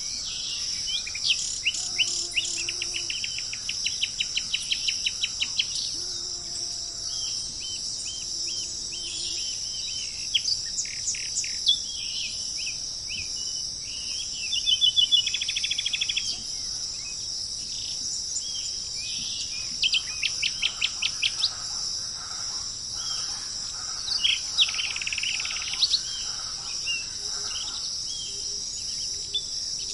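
Tropical forest ambience: birds giving rapid trains of short high chirps and calls, in several separate bouts, over a steady high-pitched insect drone. A few soft low notes come in under them.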